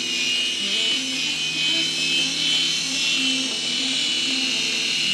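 Small toy RC helicopter's electric rotor motors whining steadily and high-pitched as it flies about.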